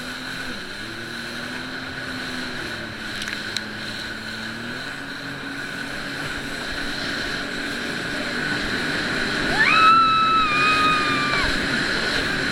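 Jet ski engine running steadily under way, with wind and water noise; its note steps up about five seconds in as the throttle opens. About ten seconds in, a held high-pitched tone lasting about two seconds rises over it.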